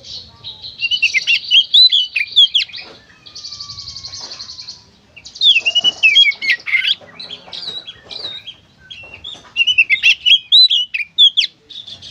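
Oriental magpie-robin (kacer) singing hard: three loud bursts of rapid whistled, sweeping phrases, alternating with harsh buzzing rattles.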